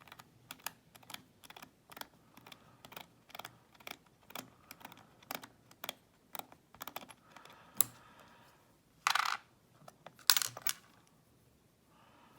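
Many small, irregular metallic clicks as a lock and its key are handled while the lock is locked back up and taken apart, with a short scraping rattle about nine seconds in and two sharper clacks soon after.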